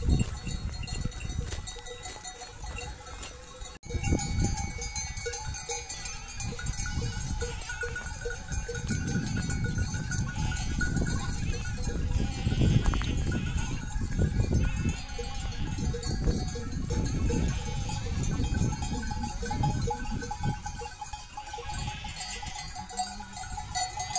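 A flock of sheep bleating now and then, with livestock bells clinking.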